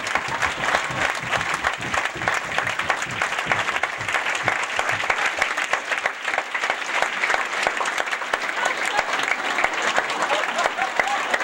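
Large audience applauding steadily, many hands clapping at once in a dense, even patter.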